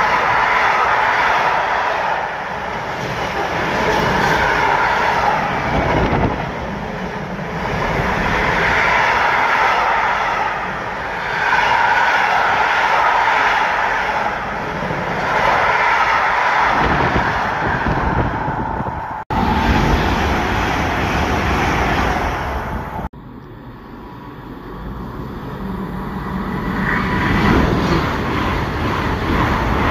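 Freight train's container wagons rolling fast over the rails, a loud steady rumble and rattle of wheels that swells and dips as the wagons go by. After two abrupt cuts, a passenger train runs in on the near line, growing louder.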